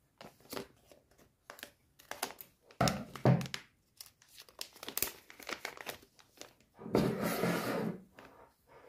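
Plastic packaging crinkling and rustling in irregular handfuls as hands unwrap a purchase, with a longer stretch of crinkling lasting about a second near the end.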